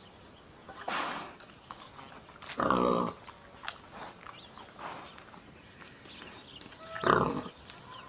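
Wild boar calling: three short, loud pig-like calls, about a second in, just before three seconds and about seven seconds in.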